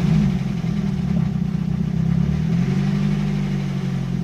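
Nissan 200SX engine running on its first cold start after a timing chain replacement. The idle wavers a little for the first couple of seconds, then settles to a steady idle.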